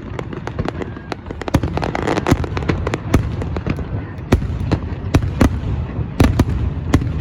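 Fireworks going off: a rapid, irregular string of sharp bangs and crackles over a continuous low rumble, thickening after about a second and a half, with several heavier booms later on.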